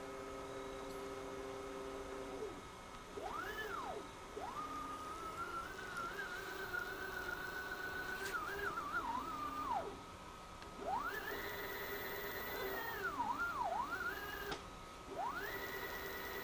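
Stepper motors of a homemade CNC table whining through a series of moves. A low steady hum in the first two seconds gives way to four moves, each a tone that rises in pitch as the motor speeds up, holds level, then falls as it slows to a stop. The longest move lasts about five seconds, and one near the end runs on at a high pitch.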